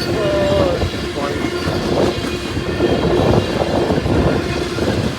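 Freight cars of a long train rolling past, wheels clacking over the rail joints, with a brief falling wheel squeal near the start.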